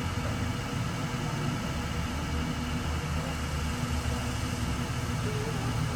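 A motor engine running steadily at an even speed, a low rumble with no revving.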